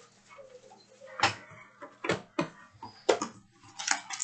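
Trading cards and packs being handled: a handful of short, sharp clicks and snaps over a faint steady hum.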